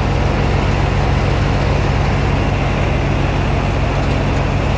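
Virdi thresher running empty on a test, driven by a Mahindra 575 DI tractor at steady speed: an even low engine hum under the constant whir of the turning drum, fan and belts.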